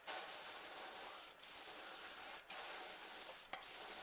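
Airbrush spraying paint: a steady hiss of air and paint in spurts of about a second, cut off briefly three times.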